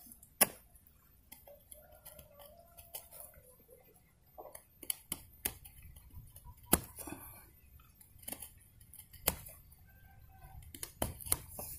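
Knife blade cutting and scraping into the bark and wood of a mulberry root: scattered sharp clicks and scrapes, the loudest about half a second in and a quick cluster near the end. These are scoring cuts meant to split the cambium so new roots grow.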